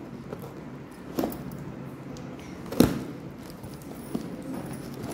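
Scissors cutting into a cardboard box and hands handling and pulling the box open, heard as scattered clicks and rustles, with a sharp knock about three seconds in.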